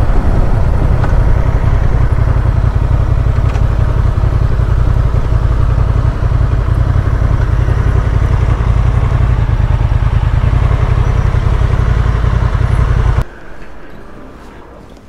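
Honda Transalp motorcycle being ridden at speed: a loud, steady engine and riding noise from the moving bike, which cuts off abruptly about 13 seconds in.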